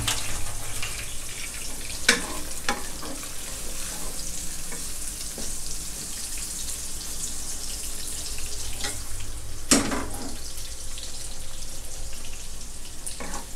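Soaked shiitake mushroom pieces sizzling steadily in hot lard in a wok. A few short knocks break in, the loudest about ten seconds in.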